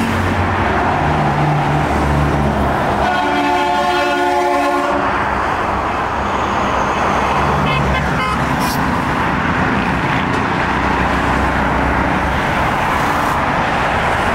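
Steady noise of trucks and cars passing on a highway, with engine drone and tyre noise. A vehicle horn sounds for about two seconds, about three seconds in, and a shorter horn-like blast comes about eight seconds in.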